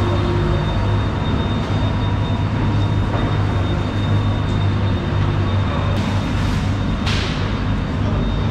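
Steady low mechanical drone, an engine or machinery running, with a short hiss about seven seconds in.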